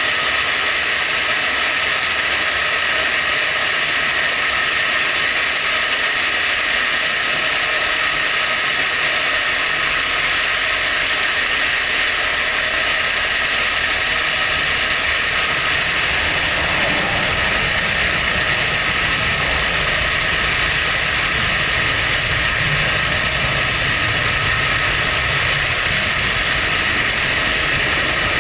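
Milling machine running steadily as the cutter works all the way around a hole in a metal tooling plate, opening it up a few thousandths. A deeper rumble joins about two-thirds of the way through.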